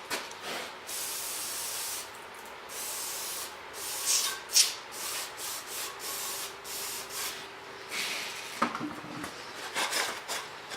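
Rag rubbing and scrubbing oil out of a valve cover: hissy wiping, steady stretches early on, then quick irregular strokes, the sharpest a little past four seconds in.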